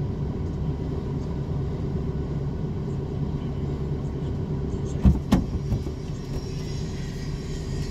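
Steady low rumble with a faint hum, heard from inside a car cabin while a gale blows and rain hits the windscreen outside. A couple of sharp thumps come about five seconds in.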